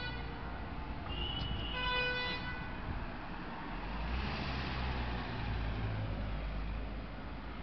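Car horn honking: a held blast cuts off right at the start, a short higher tone follows, and a second blast comes about two seconds in. Then a Volkswagen van drives past close by from about four seconds in, its engine and tyre noise swelling and fading.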